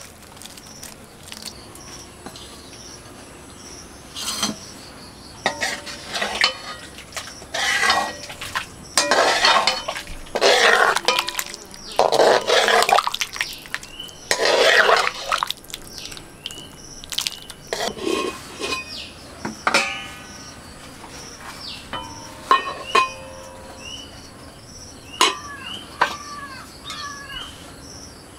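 A wooden spoon stirs and scrapes thick curry in a black iron wok, in a run of loud scrapes through the middle. Later a metal ladle clinks a few times against the wok. Birds chirp and an insect keeps up a faint, high, pulsing call in the background.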